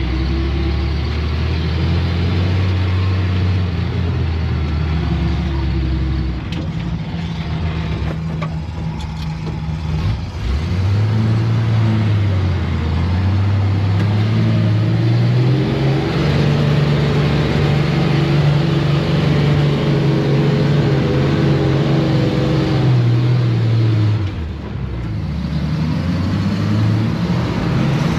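Engine of a vintage off-road wrecker truck driving through sand, heard from inside the cab. Its pitch drops about a quarter of the way in, climbs and holds high through the middle, then falls with a brief let-off near the end before picking up again.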